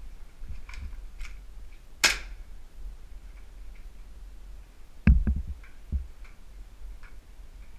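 Footsteps climbing concrete stairs, with small scuffing ticks from grit and gear throughout. A single sharp click about two seconds in, and a short run of low thuds from heavier steps about five seconds in.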